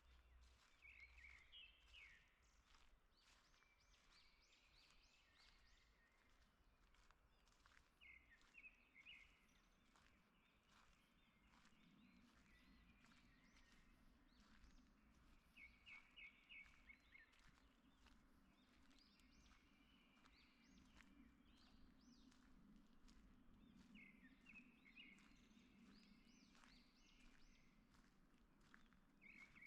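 Faint forest birdsong: one songbird repeats a short phrase of quick high notes about every seven or eight seconds, with other birds calling more softly between. Soft footsteps run underneath.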